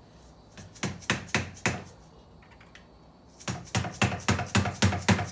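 Mallet blows on a pry tool wedged under the top cover of a T5 manual transmission, knocking the Permatex-sealed cover loose. Four sharp knocks about a second in, then a faster run of about nine knocks over the last two seconds.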